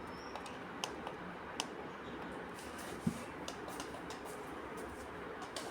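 Quiet room tone with a few light, sharp clicks and taps scattered through it.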